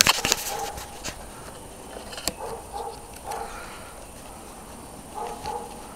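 A few clicks and rustles from the camera being handled, with several short, faint animal calls in the background, the clearest about five seconds in.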